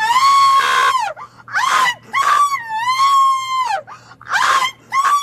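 A woman screaming: a string of long, high-pitched wailing screams, each about a second long, with short breaks between them.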